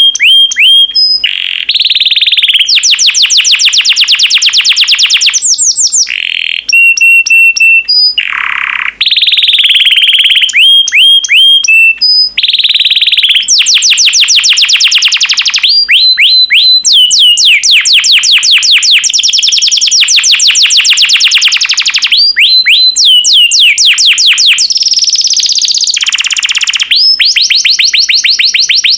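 Yellow domestic canary singing loudly and almost without a break: long runs of fast rolling trills alternating with held whistled notes, with a few short pauses.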